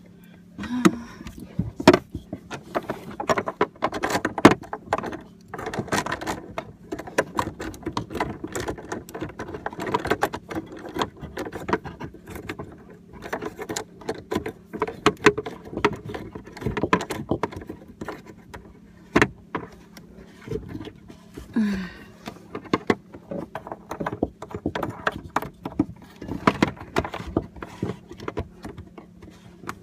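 Small metal parts clinking and rattling, with knocks and scrapes, as faucet mounting nuts are fitted and screwed on by hand under a sink cabinet. A steady low hum runs underneath.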